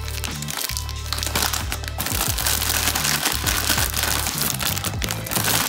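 Plastic instant-noodle packet crinkling as hands work a block of dried ramen out of it, denser from about two seconds in, over background music with a steady bass line.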